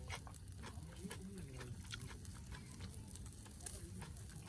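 Wood campfire crackling, with scattered sharp pops.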